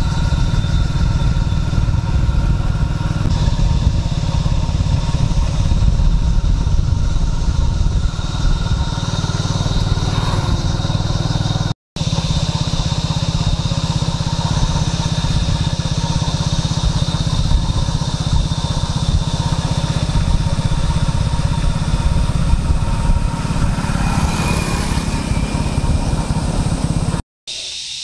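Motorcycle engine running steadily while the bike is ridden along a road, with a heavy low rumble that breaks off for an instant twice.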